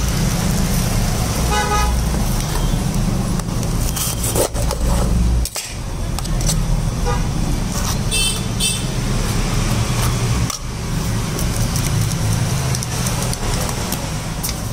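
Street traffic: a steady low engine rumble, with two short horn toots, one about two seconds in and a higher-pitched one about eight seconds in.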